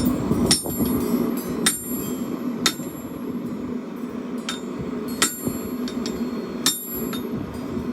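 Hammer blows on forged steel over an anvil: about six sharp, ringing strikes spaced roughly a second apart, as a chopper blade is hammered down to straighten it, over a steady low hum.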